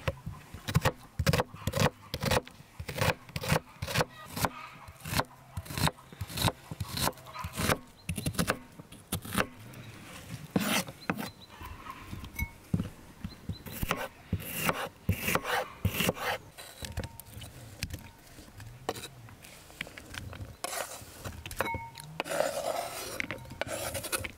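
Kitchen knife slicing an onion on a wooden cutting board: a quick run of sharp chops, about two or three a second, that grows sparser. Near the end the slices are scraped off the board with the knife into a glass bowl.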